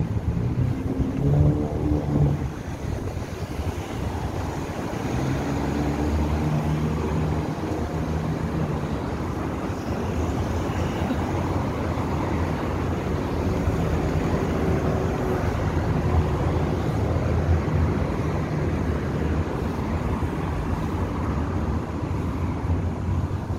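Road traffic on a multi-lane boulevard: a steady rush of passing cars, with the engine hum of individual vehicles swelling and fading several times.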